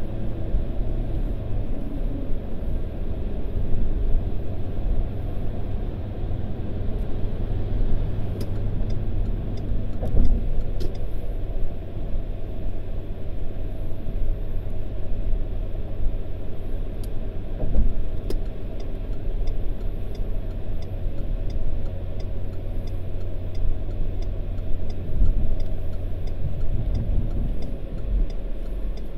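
Car driving at motorway speed, heard from inside the cabin: a steady low rumble of tyre and engine noise.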